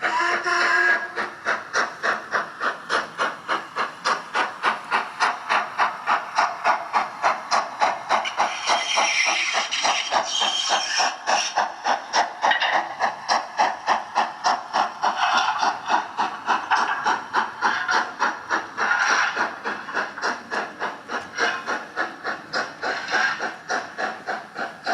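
Model steam locomotive's sound decoder playing an LMS Black 5 steam exhaust through its small onboard speaker: a steady run of chuffs, about three a second, with hissing steam rising in places.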